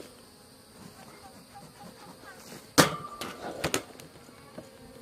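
Honeybees buzzing faintly and steadily around an opened hive, with one sharp knock a little past the middle and a few lighter knocks just after it.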